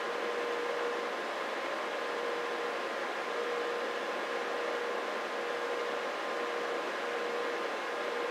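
Stryker SR955HPC 10-meter radio receiver's audio output hissing steadily, with a weak AM test tone fading in and out of the noise. The receiver is being fed a test signal turned down to a fraction of a microvolt, near its noise floor.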